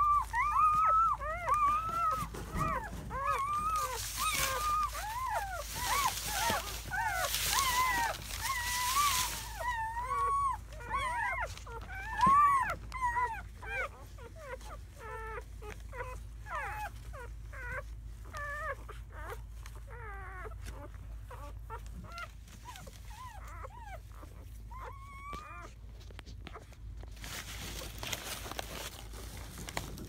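Newborn German Shepherd puppies, only hours old, crying and whimpering in many short, squeaky, wavering calls. The calls are thick and loud for the first dozen seconds, then thin out to scattered squeaks.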